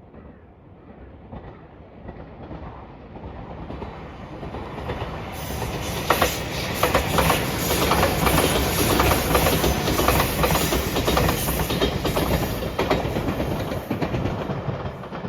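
Electric express train approaching and passing close by, growing louder over the first few seconds. Its wheels clatter rapidly over the rail joints at the loudest point, then the sound eases slightly near the end.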